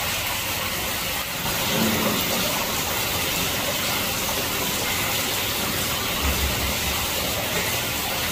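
Water running into a small goldfish pond, a steady rushing splash.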